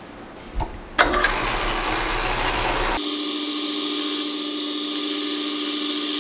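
Belt-driven metal lathe: a knock as the belt is engaged, then about a second in the lathe starts and runs steadily. About three seconds in the sound switches abruptly to a higher, brighter steady whir with no bass: the lathe turning a copper boiler end cap with a carbide cutter, played sped up tenfold.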